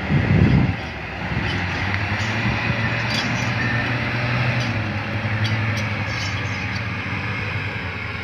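Komatsu 50-ton rigid haul truck's diesel engine running steadily as the truck rolls slowly past, with a brief low rumble of noise in the first second and a few light clinks.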